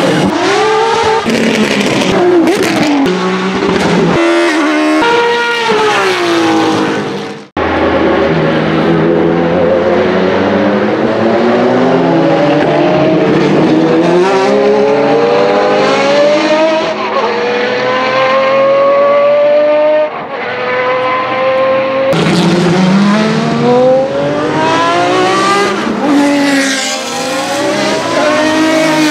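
Jaguar XJR-8 and XJR-9 Group C race cars' 7-litre naturally aspirated V12 engines, heard in a series of edited clips: revving hard, the pitch climbing and dropping again and again through gear changes, with sudden cuts between clips.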